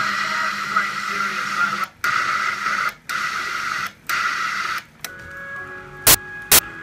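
Blaupunkt Köln car radio autoseeking on FM through a mono speaker: short bursts of hiss cut by brief mutes about once a second as it runs between stations. About five seconds in, it settles on a station playing music with a steady beat, about two beats a second.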